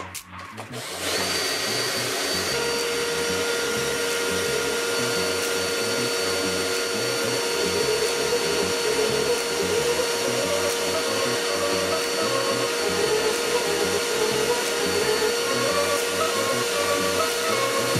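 Bosch cordless drill running steadily as a makeshift lathe, with a steady whine, starting about a second in. It spins a turned wooden table part on a threaded rod while sandpaper is held against it.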